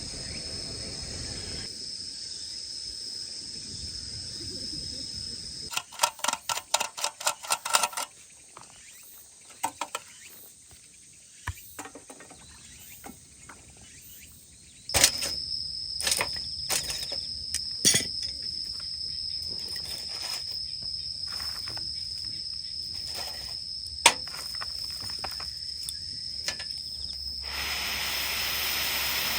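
Crickets trilling steadily as one high, thin tone that drops out and comes back, with a quick run of about a dozen ticks some six seconds in and scattered sharp clicks and knocks after that. A steady hiss comes in near the end.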